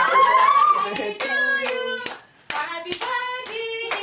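People clapping in time, about two claps a second, while voices sing a held tune. It breaks off for a moment about two seconds in, then the clapping and singing resume.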